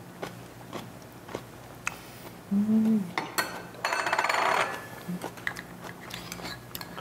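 Spoons clinking and scraping against bowls during a meal: light scattered clicks, with a louder rasping noise lasting under a second about four seconds in.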